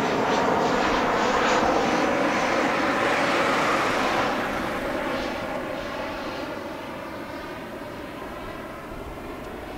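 Jet engines of a Boeing 737-700 (CFM56-7B turbofans) roaring as the airliner passes overhead. The roar is loudest for the first four seconds, then fades steadily and grows duller as the plane flies away.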